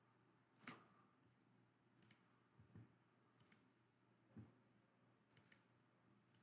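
Near silence: faint room tone with a few scattered faint clicks, the clearest about a second in, and a couple of soft low taps.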